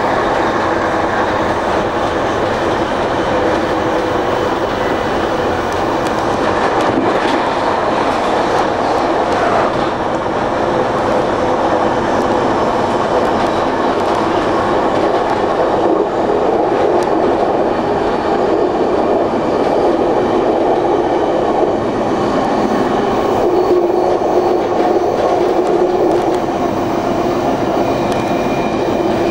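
Electric commuter train running steadily along the rails: a continuous rumble of wheels on track, with a faint steady hum beneath it.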